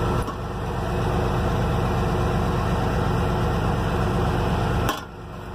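Engine idling steadily with a low rumble, which dips briefly about five seconds in.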